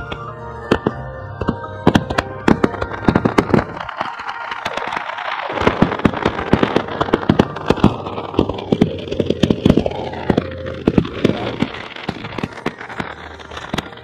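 A starmine fireworks barrage: many aerial shells bursting in rapid succession, dozens of sharp bangs, thickest through the middle and thinning near the end.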